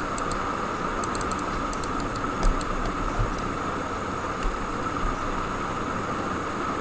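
Steady background hiss of the recording with a constant faint whine, and a scatter of faint clicks in the first couple of seconds.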